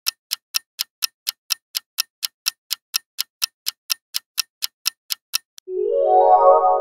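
Clock-ticking sound effect for a quiz countdown timer, about four sharp ticks a second, stopping after about five and a half seconds. A held, chime-like musical tone then sounds as the answer is revealed.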